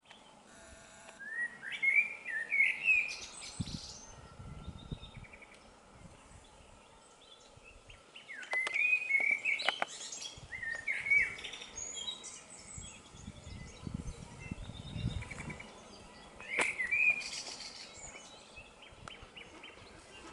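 A songbird singing short warbling phrases three times, with fainter bird chirps and a low rumble in between.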